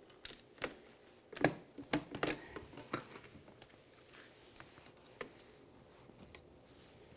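Light scattered taps and clicks of hands handling damp eggplant slices, pressing a towel down on a metal sheet pan and lifting slices out of a stainless steel colander. The taps come mostly in the first three seconds, then only a few faint ticks.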